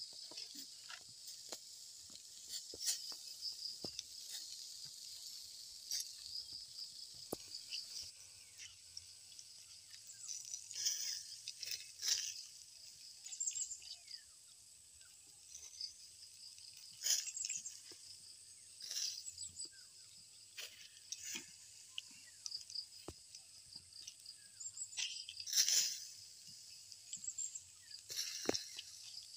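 A steady high-pitched insect chorus, with irregular crackles and pops from chicken skewers grilling over charcoal.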